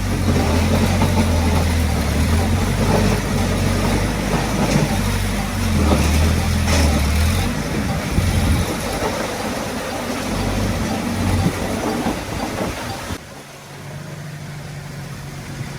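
Diesel engine of heavy earthmoving machinery running under load, with a few sharp metallic clanks. About 13 seconds in it cuts abruptly to a quieter, steady engine hum.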